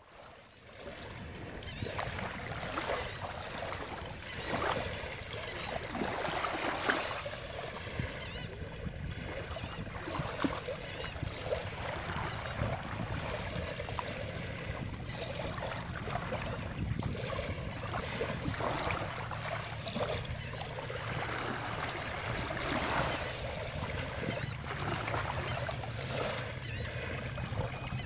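Shallow surf washing in and out over wet sand, a continuous rush of water that swells and eases every few seconds.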